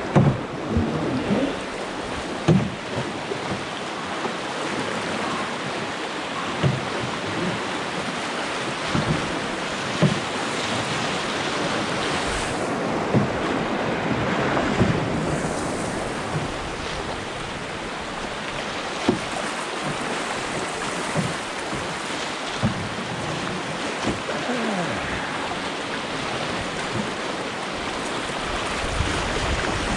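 Rushing whitewater of a brook's class II rapids, heard from a canoe moving through them: a steady dense splashing hiss, with a dozen or so short low thumps scattered through it.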